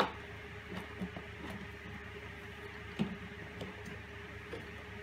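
Handling noise: a few soft knocks and rubs as the wooden top plate of a small computer rig is gripped and tilted while cables are fed through it, the sharpest at the start and about three seconds in. A steady low hum runs underneath.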